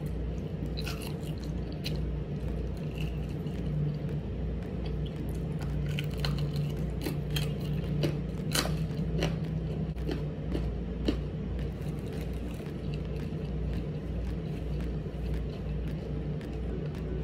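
Close-up eating sounds: biting into crispy pata, deep-fried pork knuckle with crunchy skin, and chewing it with open crackling crunches. The crunches come thickest in the first two-thirds and thin out after that, over a steady low hum.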